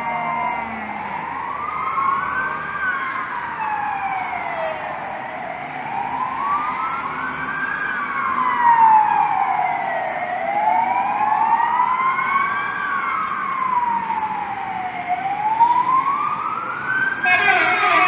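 Fire engine siren wailing, its pitch sliding slowly up and down about every five seconds as the fire brigade approaches a house fire. Near the end a fast warbling yelp joins in.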